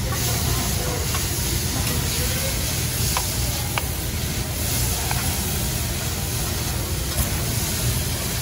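Food sizzling and steaming on a hot steel hibachi griddle as it is stirred, with a few light clicks of the metal spatula.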